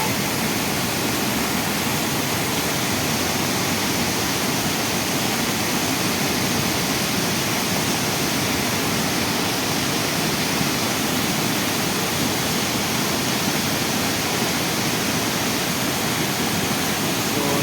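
Beas river in flash flood: a steady, unbroken rush of fast, high water.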